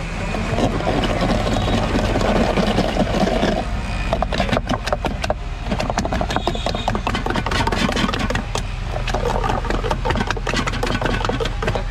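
Wooden hand churner twirled fast between the palms in a steel mug of aloe vera gel and liquid: a rapid, uneven clatter and clicking of wood against metal as the drink is whipped. A steady low hum runs underneath.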